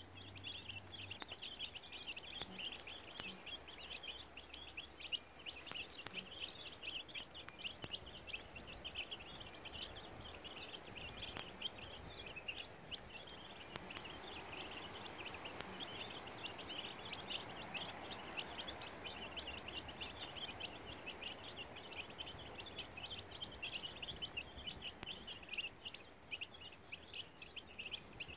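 A flock of young chicks peeping continuously, many short high peeps overlapping without a break.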